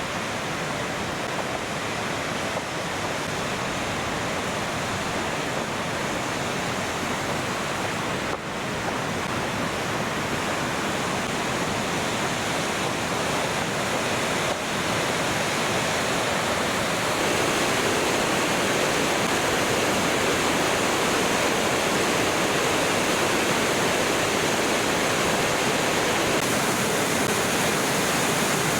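Kings Creek Falls rushing: steady falling-water noise that grows louder, with a step up about two-thirds of the way through.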